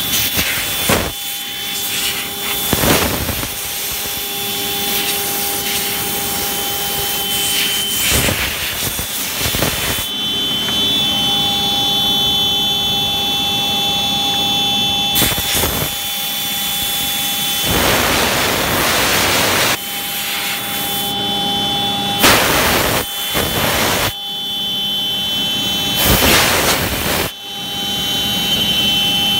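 CNC router spindle running with a steady high whine while its end mill cuts a curved path through a thick sheet, with louder stretches of cutting noise every few seconds.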